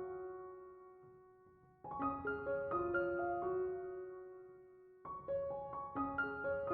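Background piano music: short phrases of quick notes that ring out and fade away, starting again about every three seconds.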